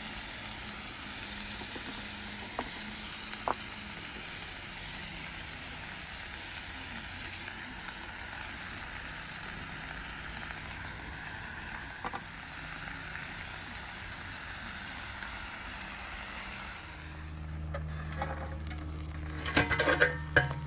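Sliced steak, peppers and onions sizzling steadily on a hot cast iron griddle as they fry, with a few faint clicks. Near the end a low steady hum comes in, followed by a short run of sharper, louder clicks and knocks.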